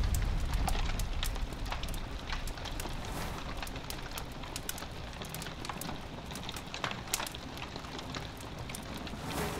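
Wood campfire burning: many irregular sharp crackles and pops over a steady low rumble of the flames.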